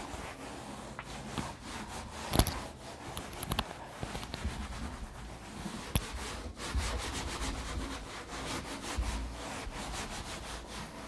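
Scratchy rubbing strokes of handwriting, in quick runs, with a sharp click about two and a half seconds in and another about six seconds in.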